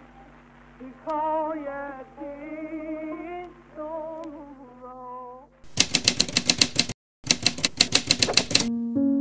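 Rapid typewriter keystrokes, a fast clatter of about eight to ten strikes a second with a short break in the middle. Before it there is a singing voice with a wavering pitch, and piano music comes in at the very end.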